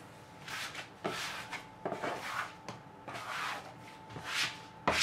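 Hands in latex gloves kneading and pressing crumbly shortbread dough against a worktop: a series of soft rubbing swishes, roughly one or two a second, with a sharper knock near the end.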